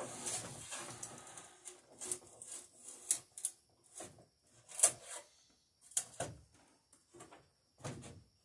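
Drawknife shaving a wooden plank: a string of short scraping strokes at uneven spacing as the gain is cut at the plank's end.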